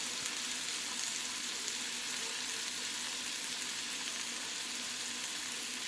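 Chicken tenders sizzling steadily in a hot frying pan as they sauté, an even hiss.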